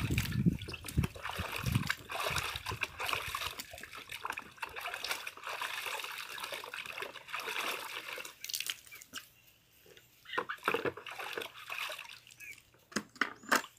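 Scaled tambaqui being rinsed by hand in a bucket of water: water sloshing and splashing as the fish is rubbed and turned. The splashing is continuous for most of the first nine seconds, then comes in a few short separate splashes.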